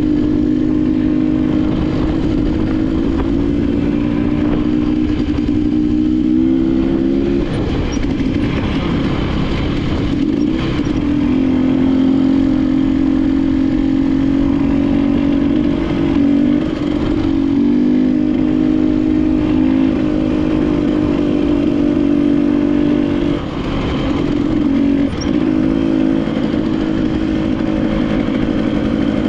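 KTM enduro dirt bike engine running under load while riding, holding steady revs for several seconds at a time. The pitch shifts and dips briefly about a quarter of the way in, near the middle, and again about three-quarters through.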